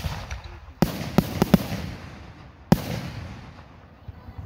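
Aerial fireworks bursting overhead: a sharp bang about a second in followed by a quick string of crackling reports, then another single bang near the middle. Each trails off in a long rolling echo.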